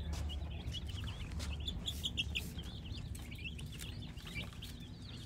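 A brooder full of baby chicks peeping, many short high chirps overlapping without a break.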